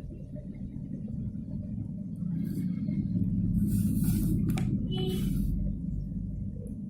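A low rumble, loudest in the middle, with a few brief higher-pitched rustling noises and a couple of sharp clicks.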